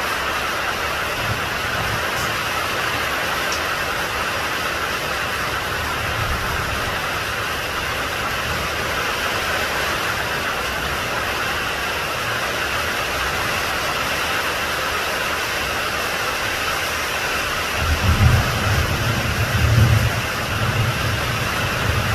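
Steady rain falling, an even hiss. From about eighteen seconds in, a deep low rumbling swells in several surges under the rain.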